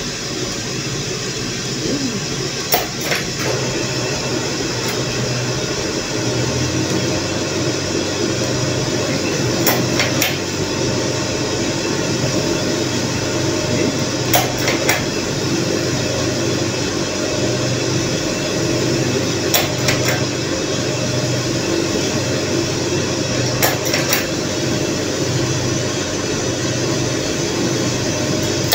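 Small drum coffee roaster running, with beans tumbling in the rotating drum as a steady rush over a pulsing rumble, during roasting of the beans. Pairs of sharp metal clicks come every four to five seconds.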